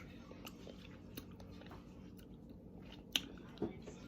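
Faint mouth sounds of someone biting and chewing mango flesh, with scattered small wet clicks and a sharper tick about three seconds in.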